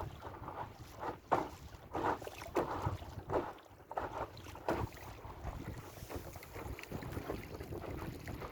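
Water slapping and splashing against the hull of a Tribord 5S inflatable sailing dinghy in irregular surges, with wind rumbling on the microphone.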